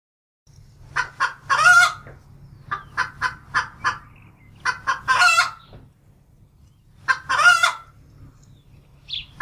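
Hen cackling: a few quick clucks followed by a longer drawn-out squawk, the pattern repeated about four times, over a low steady hum.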